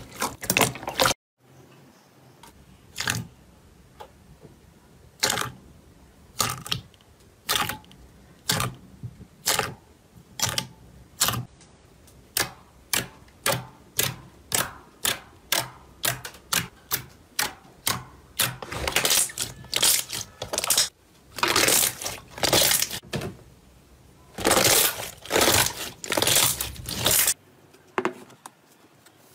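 Fingers poking and pressing a thick slime, making a long run of short, sharp pops about two a second, then longer squelching squishes.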